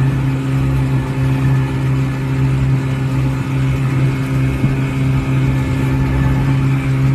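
Boat engine running steadily at constant speed while the boat moves across the water: an even, unchanging low drone.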